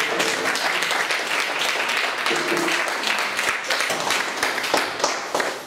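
Church congregation applauding, many hands clapping together; the clapping thins out near the end.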